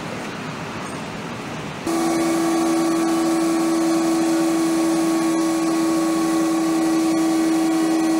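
Even rumbling train noise. About two seconds in it gives way to a loud, steady electrical hum of several held tones, one strong low tone uppermost, from an old rod-drive electric locomotive standing at the platform.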